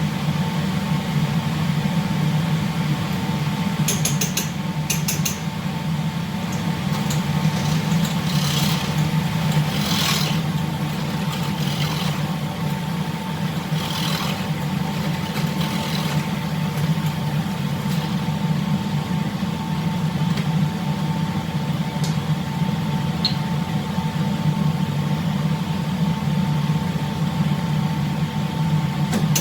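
Steady low hum of a ship's machinery with a constant whine above it, and a few light clicks and scrapes of kitchen utensils here and there.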